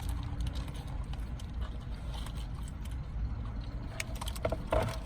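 Steady low rumble of loud background noise, with a few faint clicks and a short voiced sound near the end.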